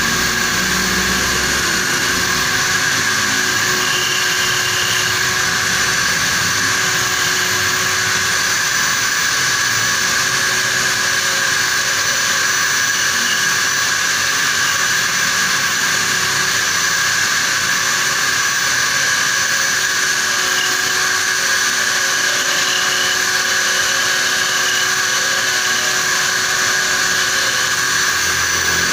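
Electric drill clamped in a vise running steadily as a makeshift lathe, a hand-held turning tool scraping the spinning metal workpiece. A constant high whine holds throughout.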